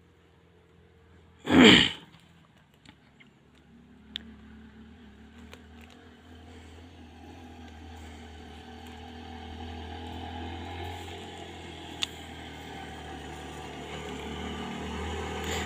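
A motorcycle engine approaching, its sound growing steadily louder through the second half. A short loud burst comes about two seconds in.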